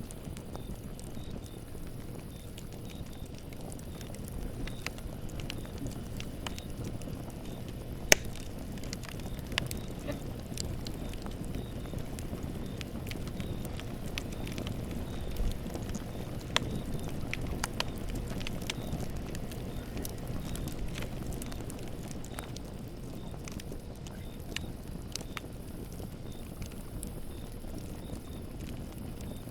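Campfire burning: a steady low rush of flames with scattered wood crackles and pops, the sharpest pop about 8 seconds in.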